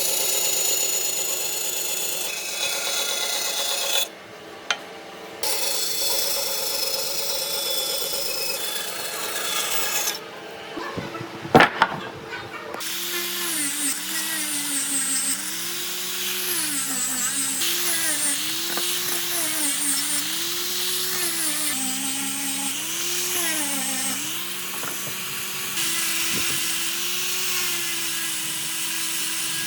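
Power tool working wood. In the second half its motor pitch repeatedly dips and recovers as the tool is pressed into the wood and eased off. There is a sharp click near the middle.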